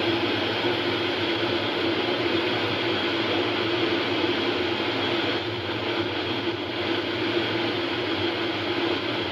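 Steady, loud drone of a UH-60 Black Hawk helicopter running, with a constant hum under a wide rushing noise.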